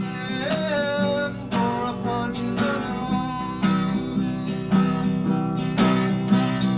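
Soundtrack music led by a plucked guitar, with notes struck in quick succession.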